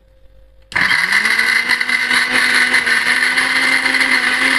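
Sujata mixer grinder switched on about a second in, its motor running up at once and then whirring at a steady high speed, grinding soaked sabudana, samak rice, peanuts and curd into idli batter.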